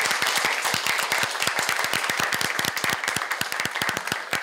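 A small audience applauding, with separate hand claps heard in a dense, steady patter.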